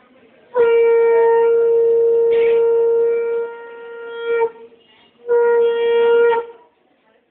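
Conch shell (shankha) blown in two blasts, both on one steady note. The first is held for about four seconds and wavers near its end; the second, about a second later, lasts about a second.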